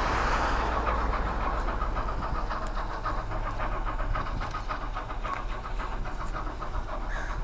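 Steam locomotive working hard as it approaches, its exhaust chuffing in a rapid, even rhythm over a steady low rumble.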